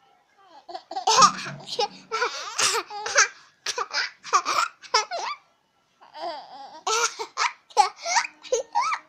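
A baby laughing and squealing in short, high-pitched bursts, with a brief pause a little past halfway.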